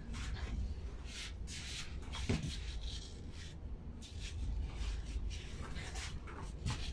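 Knife peeling a mango: repeated short scraping strokes of the blade against the skin and flesh.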